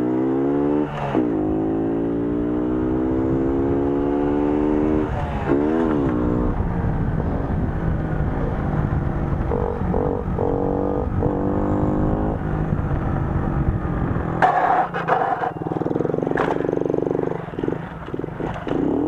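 Moped engine revving hard through a wheelie. Its pitch rises, drops about a second in, and dips and climbs again near 6 s. From about 14 to 17 s there is rough scraping and clattering as the rear rack grinds on the asphalt.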